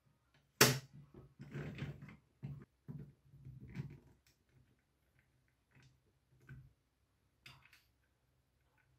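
Hands handling a plastic toy sewing machine and its thread spool: one sharp plastic click about a second in, then irregular rubbing and knocks, thinning to a few faint clicks in the second half.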